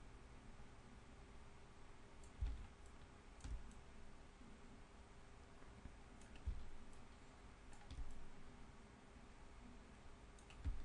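Computer mouse being clicked and handled on a desk: about five soft clicks and knocks, spread out, over a faint steady room hum.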